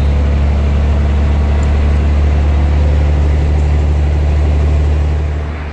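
Scania 113H truck's straight-six diesel engine running steadily at cruising speed, heard inside the cab as a loud, even low drone. It fades away just before the end.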